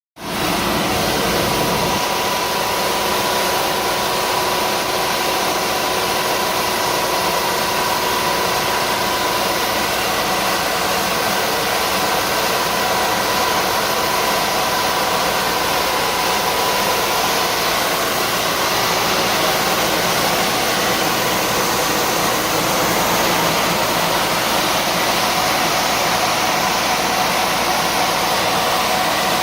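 Vacuum sweeper running steadily: an even rushing noise from its suction with a steady high whine over it.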